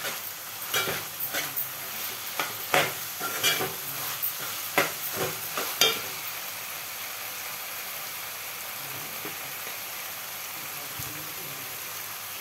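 Chopped bean pods and onions frying in an aluminium pot, a steel spatula scraping and clacking against the pot as they are stirred. About six seconds in the stirring stops and only a steady frying sizzle goes on.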